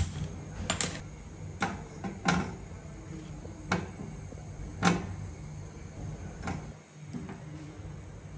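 Sharp clicks and metal clinks on a gas stove: a spark gas lighter clicking as the burner is lit, then a wire roasting rack set over the burner and brinjals laid on it, about eight knocks at irregular spacing over a low steady hum.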